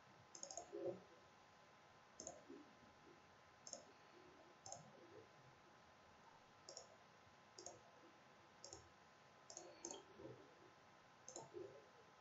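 Faint computer mouse clicks, about a dozen at irregular intervals roughly a second apart.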